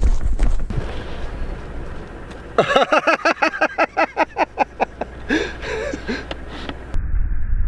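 A rooster ring-necked pheasant cackling: a rapid run of harsh notes, about seven or eight a second, then a couple more calls. A low rumble is heard at the start and again near the end.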